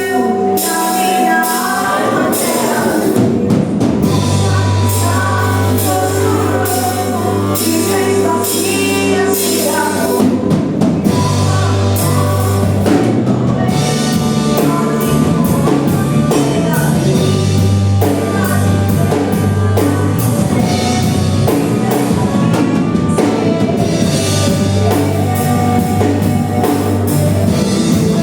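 Gospel worship band playing with a steady drum-kit beat, bass and singing.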